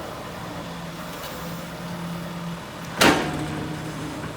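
Diesel engine of an excavator running steadily, with one loud, sharp bang about three seconds in.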